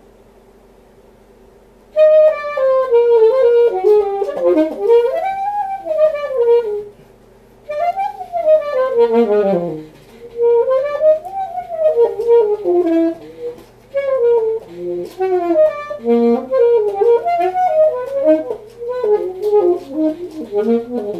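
Alto saxophone with a Meyer 5M mouthpiece and a La Voz medium reed, playing a fast etude: quick runs of notes that swoop up and down in phrases, with short breaths between them. The playing starts about two seconds in.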